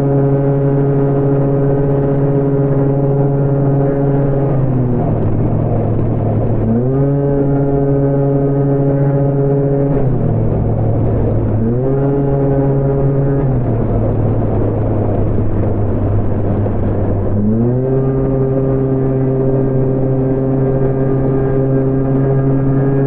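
Honda Gyro scooter engine running at a steady high pitch while riding, its revs falling off and picking back up three times, over wind and road noise.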